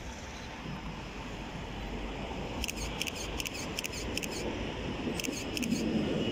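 A camera shutter firing in rapid bursts, about six clicks a second for a second and a half, then a few more clicks about a second later. Under it, street noise and a tram approaching on its rails, slowly growing louder.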